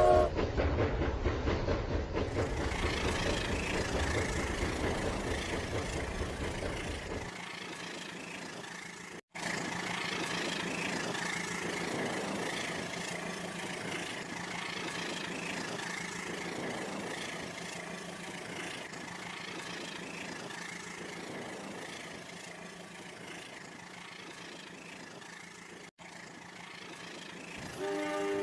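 Toy train running on its track, its small motor humming steadily. A deeper rumble drops away about seven seconds in.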